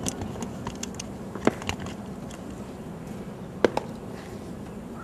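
Steady low background noise with a faint hum, broken by a few scattered sharp clicks: one about a second and a half in and two close together past the middle.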